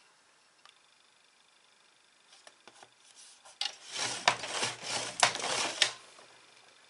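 Scoring tool drawn along the rail of a paper scoring board, pressing a fold line into card stock: a scraping run of about two seconds, about halfway in, with a few sharp clicks. Faint paper rustles come before it.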